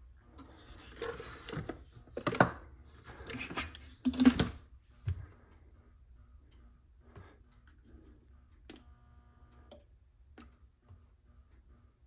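Schumacher MC1281 battery charger plugged in with nothing connected, giving a steady low hum with a faint, rapidly pulsing whine, the 'woo, woo, woo' noise its owner doubts is normal. Loud rustling and knocks of handling fill the first five seconds, a few sharp clicks follow, and a brief tone sounds about nine seconds in.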